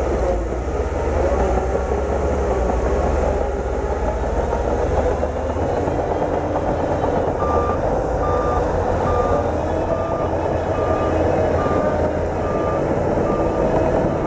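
Bulldozer's diesel engine running under load, with a reversing alarm beeping about twice a second from about halfway through as the machine backs up.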